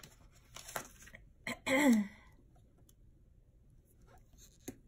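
Paper planner sticker being peeled and pressed onto a planner page: light paper rustles and soft clicks. About two seconds in comes a short wordless vocal sound from the person, the loudest sound here.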